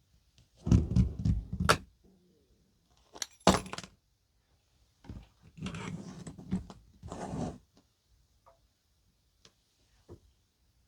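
Keys and a padlock being handled, jingling and clinking in three or four short bursts, with a few faint ticks between.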